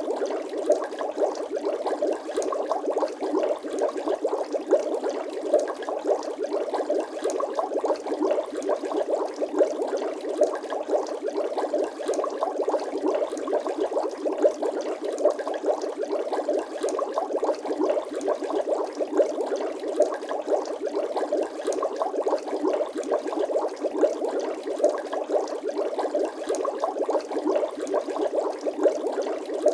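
Bubbling water sound effect: a steady, dense stream of small bubble pops with no deep bass.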